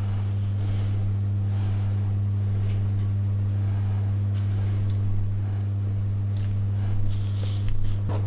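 A steady low hum throughout, with faint rustling and a few light knocks from hands tying butcher's twine around a stuffed pork joint on a plastic chopping board, most of them near the end.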